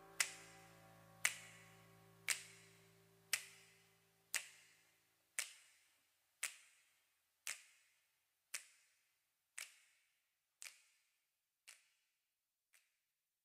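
Background music fading out: a held keyboard chord dies away over the first few seconds while a sharp snap-like click on each beat, about once a second, grows steadily fainter and stops near the end.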